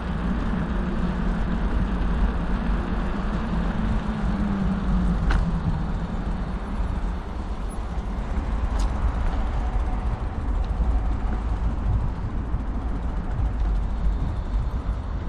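Wind rushing over the microphone and tyre noise of a bicycle rolling along a paved path, steady throughout, with two sharp clicks about five and nine seconds in.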